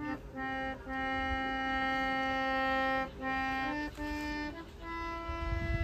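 Hand-pumped harmonium playing a slow melody of long held notes with short breaks between them. A low rumble joins in near the end.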